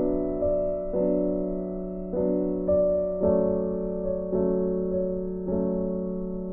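Background music: a soft keyboard melody in a piano tone, single notes struck about once or twice a second and left to fade.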